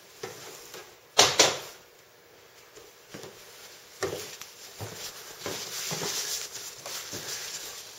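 Workshop handling knocks as transmission parts are moved about on the bench: two sharp knocks about a second in, then lighter scattered knocks.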